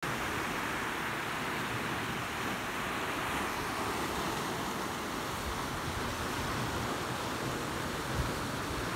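Small sea waves washing over and around shoreline rocks: a steady rush of surf and foam.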